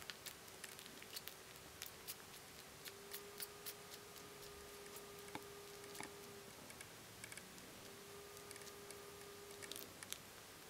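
Faint, irregular wet clicks and smacks of Bengal kittens suckling at their mother. A thin, steady hum runs underneath and breaks off briefly past halfway.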